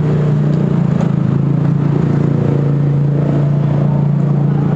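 An engine running steadily at one speed, giving a low, even hum.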